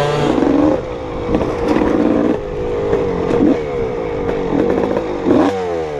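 Honda CR250R two-stroke dirt bike engine under way, its pitch rising and falling again and again as the throttle is opened and closed through the gears. Scattered clicks and rattles run over it.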